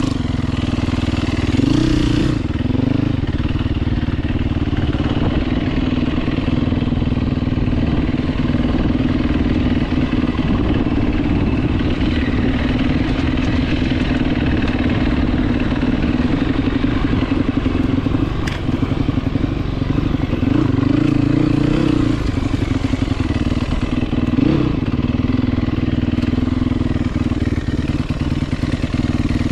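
Dirt bike engine running steadily while being ridden, swelling a few times as the throttle opens.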